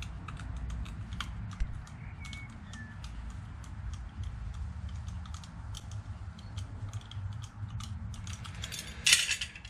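Rubber exhaust hanger strip being cut by hand with a blade: irregular small clicks and crunches as the blade works through the rubber, with a louder rustle near the end.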